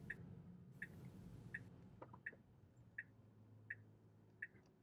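Tesla turn signal ticking faintly and evenly for a right turn, about one tick every three-quarters of a second, over a quiet low hum.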